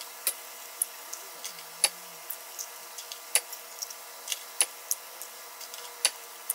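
Eggs being cracked open one after another into a glass bowl: a run of sharp, irregular clicks and taps of breaking shell, over a faint steady kitchen hum.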